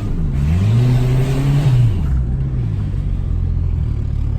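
Turbocharged Nissan SR20 four-cylinder engine under boost. The revs dip briefly, climb and hold for about a second, then fall back to a steady lower speed as the throttle comes off.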